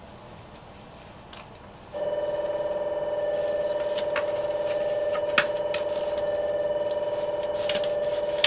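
Electric departure bell ringing continuously, starting abruptly about two seconds in and holding steady, with a couple of sharp clicks over it.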